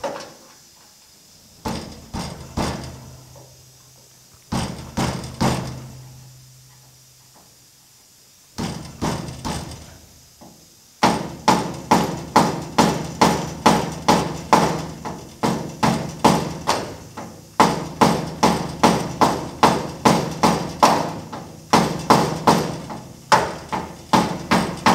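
Hammer blows on the steel sheet metal of a 1950 Chevy truck cab, working a low spot by the antenna hole back into shape. First come a few separate knocks, one leaving the panel ringing briefly. From about eleven seconds in they turn into steady, rapid tapping, about three blows a second.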